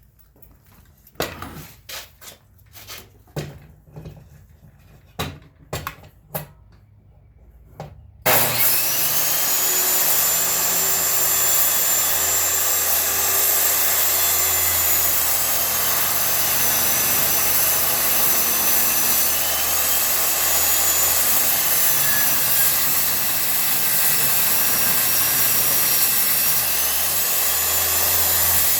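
A few scattered knocks and clicks, then about eight seconds in an electric power saw starts abruptly and runs steadily, cutting through wood, its high whine dipping and recovering slightly under load.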